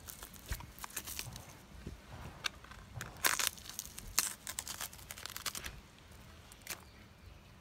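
Tough skin being torn and peeled off a raw triggerfish by hand: a run of crackling rips and small clicks, loudest a little past the middle, then quieter near the end.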